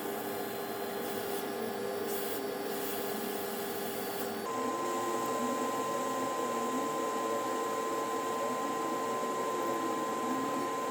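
Hot air rework station blowing steadily on a laptop motherboard to lift off components, a blower hiss with a steady hum; about four and a half seconds in the hum steps up in pitch and gets slightly louder.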